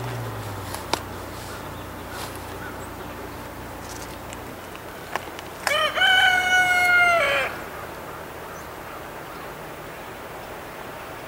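Diesel locomotive's multi-chime air horn sounding one chord-like blast of nearly two seconds, about halfway through, over the faint low rumble of the approaching locomotive.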